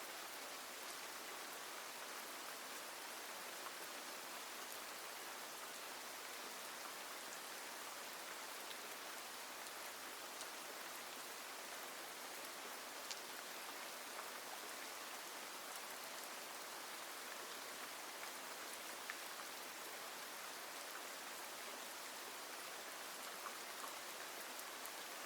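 Steady rain, an even hiss with a few sharper drop ticks now and then.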